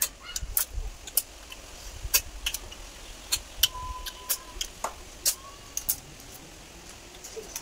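Cooked snail shells clicking against a steel plate and against each other as they are picked out by hand to eat: a string of sharp, irregular clicks, a few every second.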